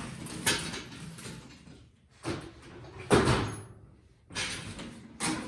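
Scraping and sliding noises from handling a heavy walk-behind power brush as its back end is lifted, in several separate pushes. The loudest comes about three seconds in.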